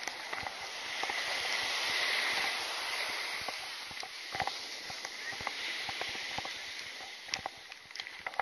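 Surf washing up the beach, a hiss that swells and then eases off, with the crunch of footsteps in sand.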